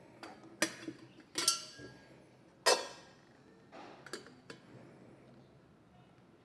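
Metal espresso and coffee gear being handled on a wooden table: a few separate sharp clinks and knocks of metal parts being picked up and set down, the loudest a little before halfway through.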